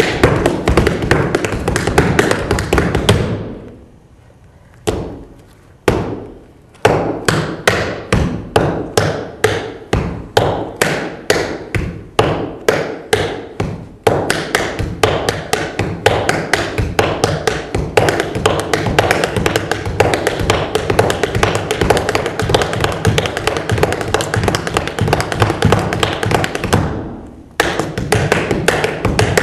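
Tap shoes striking a hard floor in fast, rhythmic runs of taps. About four seconds in there is a short pause, broken by two single taps a second apart, before a long rapid run. The taps stop briefly again near the end.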